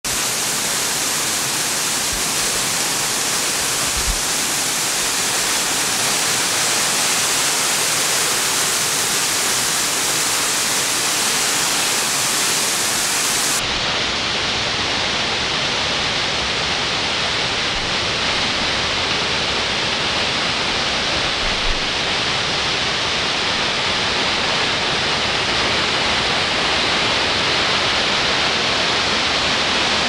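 Water cascading down the steps of a stone fountain into its pool: a steady rush of falling, splashing water that turns slightly duller about fourteen seconds in.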